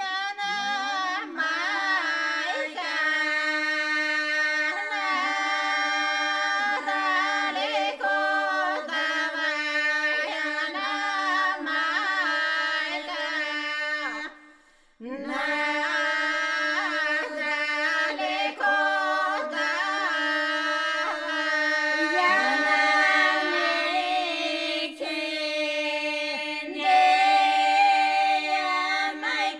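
Bulgarian folk song sung a cappella by a women's folk group in two parts: one voice holds a steady drone note while the other carries the bending melody above it. The singing breaks off briefly about halfway through, then resumes.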